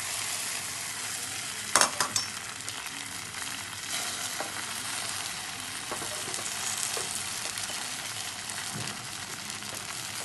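Oil sizzling steadily in a hot pan as roti omelette batter fries. About two seconds in come a few sharp clinks of a utensil against the pan.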